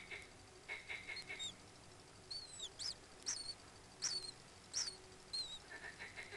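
Common kingfisher calls: a short run of quick, rapidly repeated high notes, then about six shrill, piercing whistles with sharp pitch bends, then another quick run of notes near the end.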